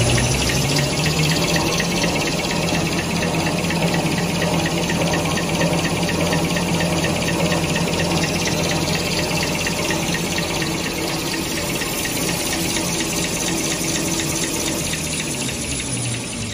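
Toilet paper rewinding and converting line running: the steady whir of its rollers and drives with a low hum and a fast, even ticking.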